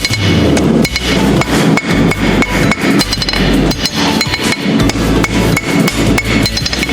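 Blacksmith's hammer striking mild steel on the anvil in a quick, even rhythm of several blows a second, each strike ringing, as the steel is hammered out.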